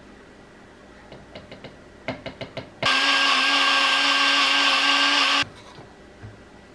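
Kitchen blender pulsed four quick times, then run steadily for about two and a half seconds before cutting off abruptly, with a few light clicks before it.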